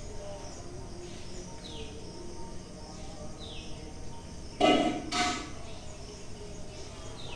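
Panasonic 32-inch LED TV's built-in speakers playing channel audio at low volume, with two short loud sounds about halfway through: the TV's sound restored by a newly fitted sound board.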